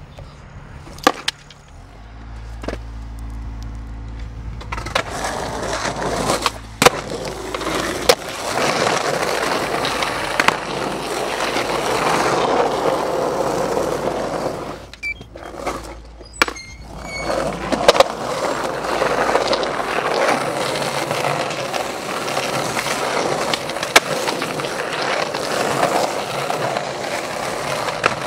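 Skateboard wheels rolling on pavement: a steady rumble that builds over the first several seconds, with sharp clacks of the board hitting the ground. Near the middle the rolling cuts out briefly twice, then comes back with a loud clack.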